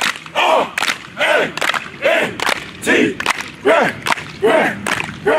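Football players' warm-up cadence: short shouted calls, one about every 0.8 s, each followed by a sharp hand clap in rhythm.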